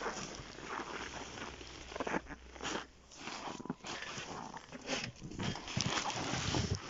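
Nylon fabric of a PolarBird Family ice-fishing tent rustling and flapping in irregular bursts as its panels are pulled out and spread by hand, with steps crunching in snow.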